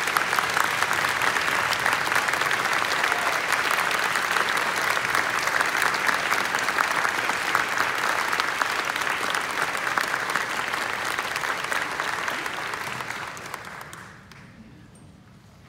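Audience applauding, a dense steady clatter of clapping that dies away near the end.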